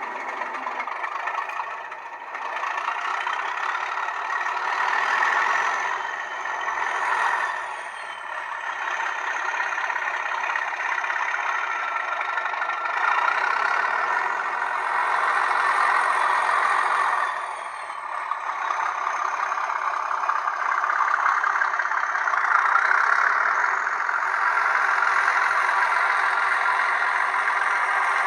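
Sound decoder in an N gauge Graham Farish Class 37 model locomotive playing a recorded English Electric diesel engine through its tiny speaker, thin and without bass. The engine revs up and eases back several times, with a high whistle rising and falling twice.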